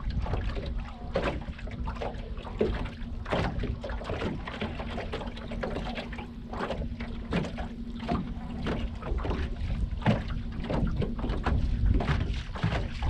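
Sounds aboard a small fishing boat on the water: a steady faint hum with many irregular knocks and clatters, over a low rumble of wind on the microphone.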